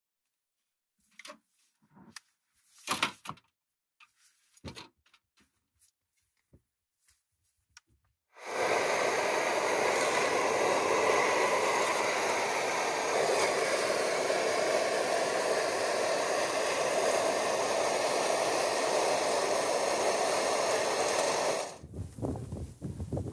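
Pressurised liquid-fuel camping stove burning at full flame under a kettle: a steady, loud rushing that starts suddenly about eight seconds in and cuts off near the end. Before it, a few faint knocks and taps as the burner is lit.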